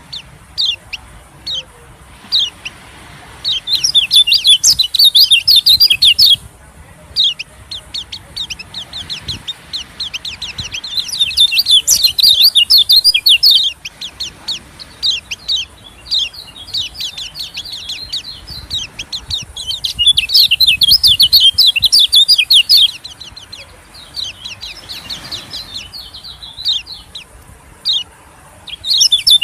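White-eye (pleci) song played as a lure call: long bursts of fast, high twittering chatter lasting a few seconds each, coming about every eight seconds, with single short chirps in between.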